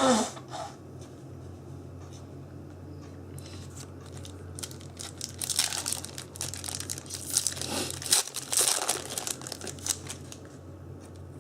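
Foil trading-card booster-pack wrappers crinkling and tearing as packs are ripped open by hand, in two bursts of rustling about five and eight seconds in, over a low steady hum.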